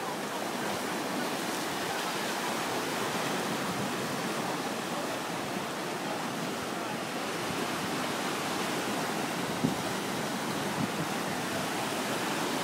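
Surf breaking and washing up a sandy beach in a steady, unbroken rush, with one brief thump about ten seconds in.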